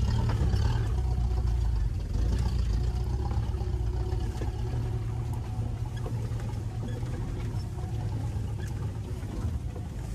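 Land Rover 4x4 engine running on a forest off-road track, a steady low rumble that gets a little quieter toward the end.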